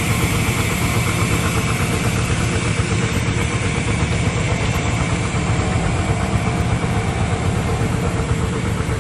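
An engine running steadily at an even speed, a constant low hum with a faint steady whine above it.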